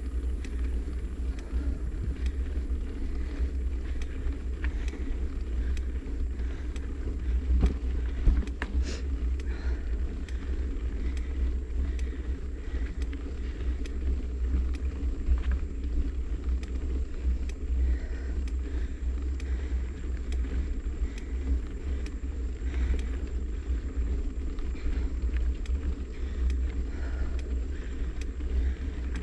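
Steady low rumble of wind buffeting the microphone and tyres rolling over rough concrete on a moving ride, with a few sharp knocks from bumps about eight seconds in.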